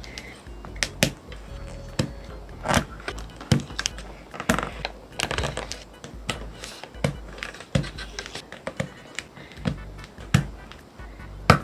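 Parts being pressed into a mechanical keyboard during assembly: irregular sharp clicks and snaps, roughly one or two a second, with background music underneath.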